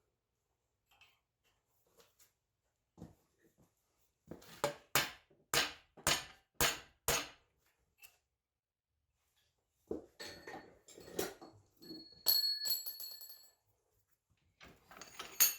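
Steel being knocked and handled at a forge: a run of about six sharp metallic knocks, roughly two a second, then a stretch of clattering metal with a bright ringing tone, and another sharp clank near the end.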